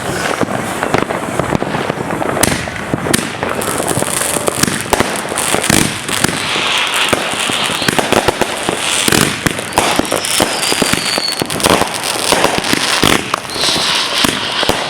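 A lit consumer firework going off: a dense, continuous crackling and popping, with a short falling whistle about ten seconds in.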